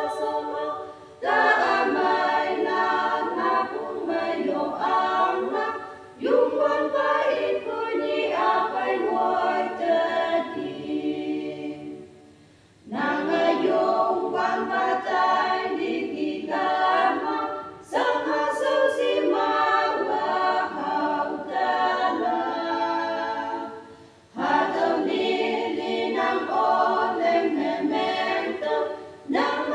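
A small women's choir of six voices singing a hymn a cappella from hymnbooks. The hymn goes in phrases of about five or six seconds with brief pauses for breath between them, one a little longer about twelve seconds in.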